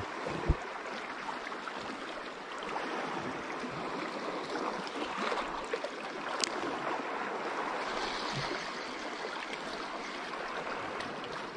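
Small sea waves washing and splashing against the rocks at the water's edge, a steady wash, with a low thump about half a second in and a sharp click after about six seconds.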